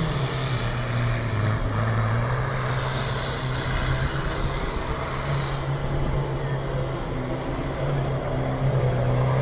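UAZ off-road 4x4's engine running hard as it drives and slides through snow, the engine note dropping about two seconds in and rising again a few seconds later, with a hiss of tyres throwing snow.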